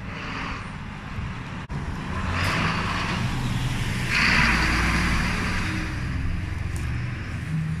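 A car driving past on the road, its engine and tyre noise building to a peak about four seconds in and then fading away.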